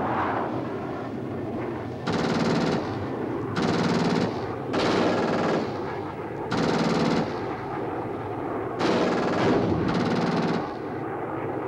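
Fighter-bomber's aircraft cannon firing on a strafing run in six short bursts, each under a second, with a steady rumble between them.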